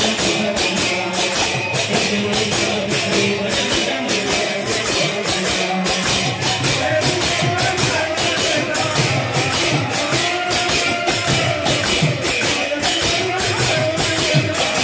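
Kirtan music from a group of barrel drums beaten fast by hand, with cymbal-like strokes clashing evenly at about four a second. From about six seconds in, a wavering melody line rises over the drumming.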